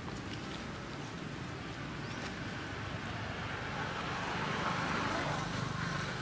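Steady outdoor background noise, a low rumble with a hiss that swells a little about four seconds in.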